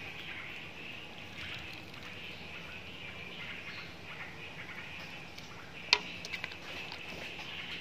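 Soup boiling in a metal pot with a steady hiss, and a sharp clink of the ladle against the pot about six seconds in, followed by a few lighter clicks.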